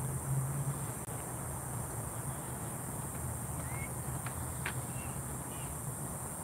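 Outdoor evening ambience: a steady low hum and a steady high-pitched hiss, with a few short bird chirps scattered through.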